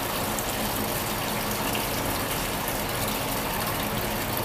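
Engine coolant gushing in a steady stream from a disconnected lower radiator hose into the funnel of a drain tank.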